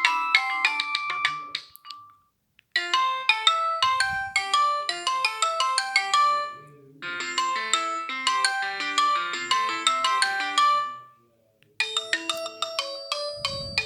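Alcatel OT-3026X mobile phone ringtones playing one after another: polyphonic synthesized melodies of quick notes. Short silent gaps fall about two seconds in and again near the end before the next tune starts.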